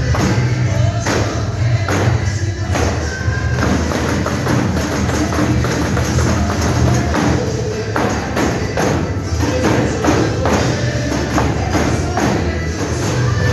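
Gospel worship music with a group of tambourines (pandeiros) struck and shaken in time, sharp jingle hits falling on the beat over a steady bass.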